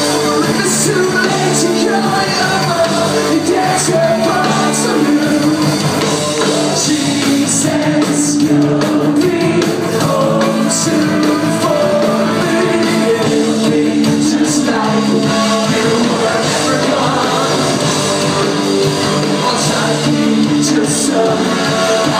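Rock band playing live: distorted electric guitars, bass and drums with cymbal crashes, and a singing voice over them.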